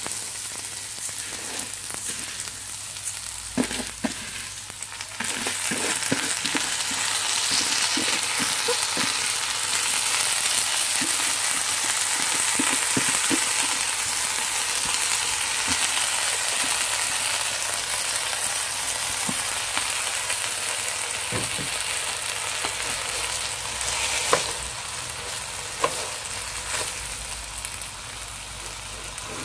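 Uncooked rice frying in hot oil with whole garam masala in a pot: a steady sizzle that grows louder about five seconds in, broken by light taps and scrapes of a wooden spatula stirring the grains.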